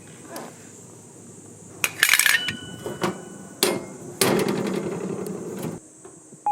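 Hard metallic knocks and clanks, a few of them ringing briefly, then a longer rough clattering noise for a second or so.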